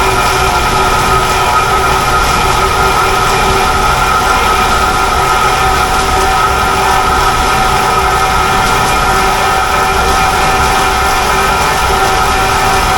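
Wooden-clog copying lathe running: a fast-spinning wheel of knives carving a block of wood into the outside of a shoe while the block and the mold turn. A loud, steady machine noise with several constant high tones.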